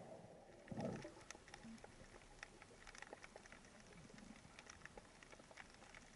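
Quiet underwater ambience picked up by a submerged camera, full of faint, irregular crackling clicks. A brief, louder low rush of water comes about a second in as the diver starts down from the surface.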